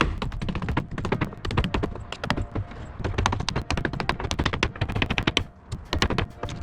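Hammer knocking nails out of wooden pallet cross pieces: a fast, dense run of sharp knocks, with a short lull about five and a half seconds in.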